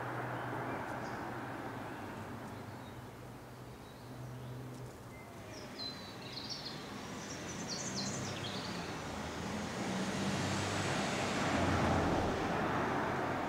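Outdoor ambience with a steady low hum and distant traffic noise that swells toward the end. A short run of bird chirps comes in the middle.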